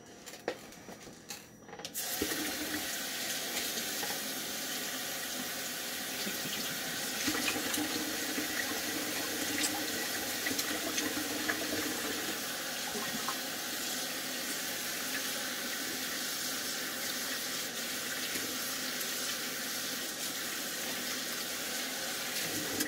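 Kitchen sink tap turned on about two seconds in and running steadily while hands are washed under the stream, after a few light knocks. The water shuts off right at the end.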